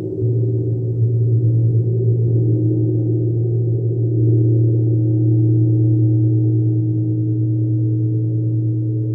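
Large gong worked with a felt-headed mallet, held in a continuous low, humming drone with many shimmering overtones and no separate strikes. It swells slightly about four seconds in.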